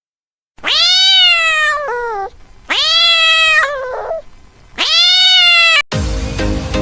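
Cat meowing three times: long, drawn-out meows that rise and then fall, each ending in a short, lower break. Electronic dance music cuts in suddenly near the end.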